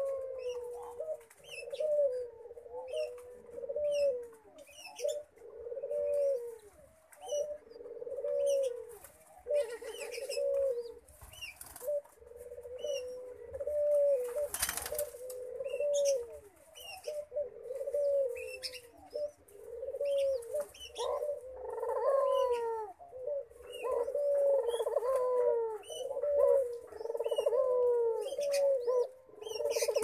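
Doves at the nest while a Barbary dove crop-feeds a spotted dove chick: a short low call that bends up and down, repeated about once a second, with faint high chirps above it. A brief rustle comes about halfway through.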